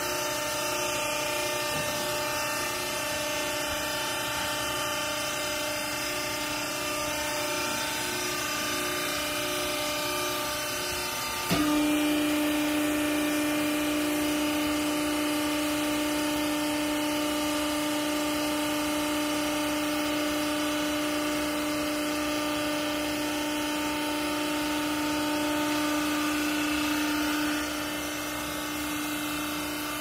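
Hydraulic power unit of a vertical textile baler running with a steady machine hum. About a third of the way in, a louder steady whine sets in suddenly and holds until near the end, then drops back. This is the pump working under load as the ram presses the bale.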